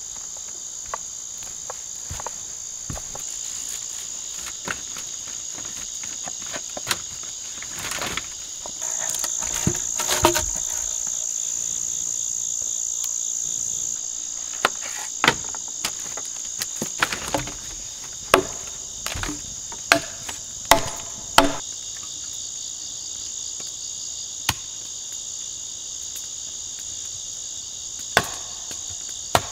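Night chorus of crickets and other insects, a steady high trill that swells louder for a few seconds near the middle. Scattered sharp knocks and clicks cut through it, thickest in the second half.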